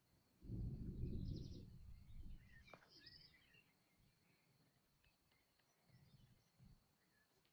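A low rumble of distant thunder sets in suddenly about half a second in and fades away over about two seconds, while birds chirp faintly.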